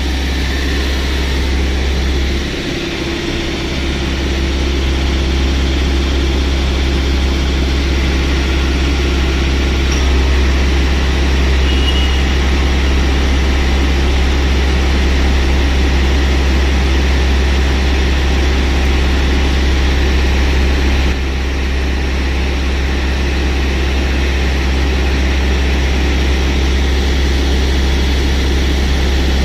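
Mahindra Scorpio S9's diesel engine running steadily at raised revs during a forced DPF regeneration, with a strong low hum. The sound dips briefly a few seconds in and drops slightly in level about twenty seconds in.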